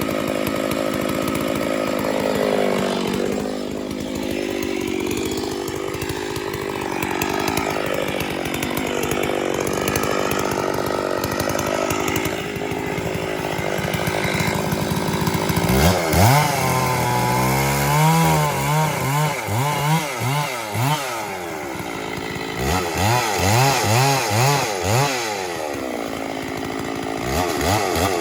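Two-stroke chainsaw engine running steadily, then from about halfway its pitch swings up and down over and over in two spells, revving and dropping back.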